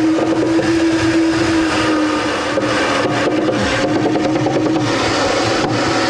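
Power screwdriver driving screws for a cabinet door's hinges into the cabinet: its motor runs with a steady whir that starts abruptly and sags a little in pitch as the screw tightens, followed by sharp clicks.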